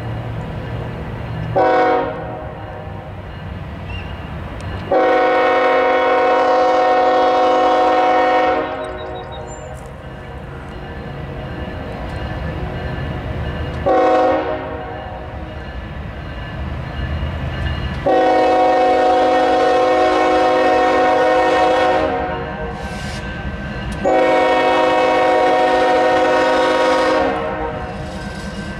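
Union Pacific freight train's diesel locomotive horn blowing a chord of tones: a short toot about two seconds in, a long blast around five seconds, another short toot near the middle, then two long blasts near the end. The low rumble of the approaching diesel locomotives runs between the blasts.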